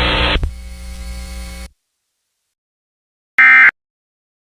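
Hissing radio static with a low hum cuts off about a second and a half in. After a silence comes one short, harsh buzzing burst of Emergency Alert System digital data, with the next identical burst starting right at the end: the end-of-message (EOM) data bursts that close an alert.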